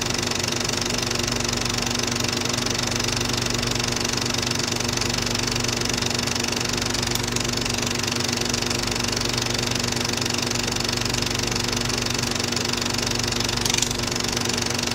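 Film projector running with a steady motor whir and a fast, even clatter. A brief louder click comes near the end.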